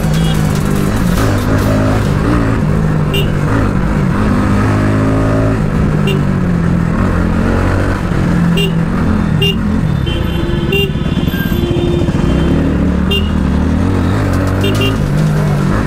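Motorcycle engine under way in traffic, its pitch rising and falling as it accelerates and eases off, with a clear rise about four to five seconds in. A few short high beeps sound over it.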